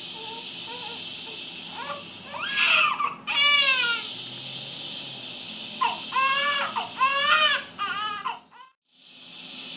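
Newborn baby crying in short, wavering wails, in two bouts about two and six seconds in, over a steady shushing hiss. All sound cuts out for a moment near the end, then the hiss returns.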